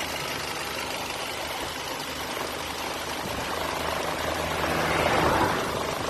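Mercedes B180 engine idling, with a strange noise that the owner traces to the hose connected to the brake booster; its cause is unknown. A louder rushing swell rises and falls about four to five seconds in.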